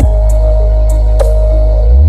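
Electronic music played very loud through a large sound system, with heavy sustained bass notes that change about every two seconds, a held synth line and sparse hi-hat ticks.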